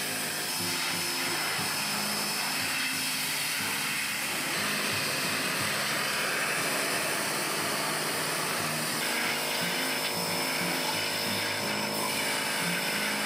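Pressure washer running steadily, its water jet hissing as it sprays cast iron bench ends.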